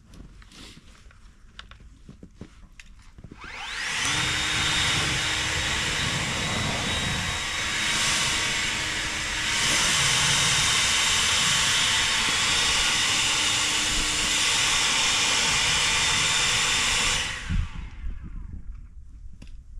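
A snow-clearing blower starts about three and a half seconds in, rising quickly to a loud, steady rush of air with a constant whine. It runs for about thirteen seconds, then shuts off suddenly.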